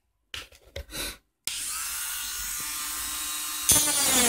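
Handheld rotary engraver with a small conical bur starts up about a second and a half in after a few faint handling clicks, then runs with a steady high whine. Near the end it grinds louder and rougher as the bur cuts the 'broken stone' texture into a titanium knife handle scale.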